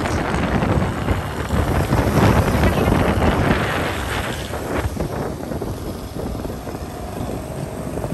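Motorcycle running along a road, its engine mixed with wind buffeting the microphone, with other motorbikes passing close by. The sound swells about two seconds in and eases off after the middle.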